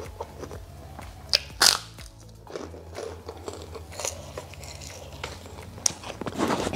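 Crunchy bites into a white fried kerupuk cracker: two loud, sharp crunches about a second and a half in, followed by quieter crackling chewing. Low background music runs underneath.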